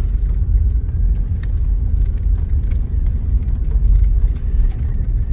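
Steady low road rumble inside a moving vehicle's cabin, with a few faint ticks and rattles.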